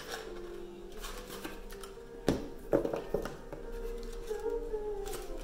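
Soft background music, with a few sharp rustles and snaps of a gift package being opened by hand a little over two seconds in; these snaps are the loudest sounds.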